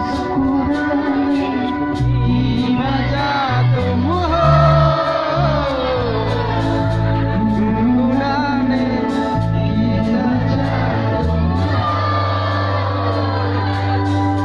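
A man singing a song live into a microphone through a PA system, over backing music with a shifting bass line and a steady beat.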